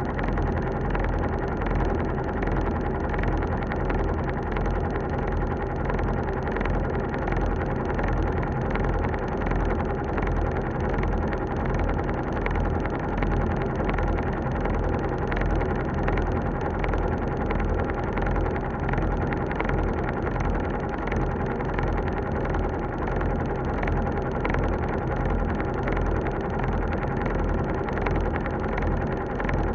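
Elevator running: a steady low hum and rumble with a constant mid-pitched tone, unbroken throughout.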